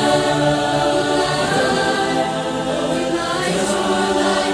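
Youth barbershop chorus singing a cappella, holding sustained close-harmony chords that shift twice.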